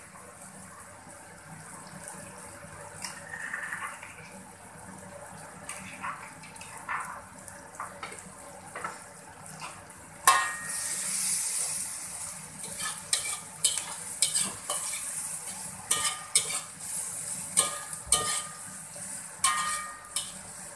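Metal spatula scraping and clinking against a metal wok while stir-frying chopped garlic, chillies and lemongrass in oil, each stroke ringing briefly. A sizzling hiss swells about ten seconds in, and the scrapes come thicker after it.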